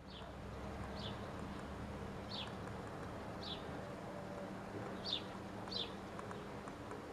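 A bird repeating a short, falling chirp six times, roughly a second apart, over steady outdoor background noise.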